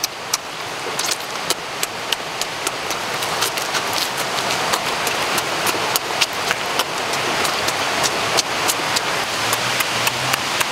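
Close-up eating sounds: wet lip-smacking and chewing clicks, several a second and irregular, over a steady hiss.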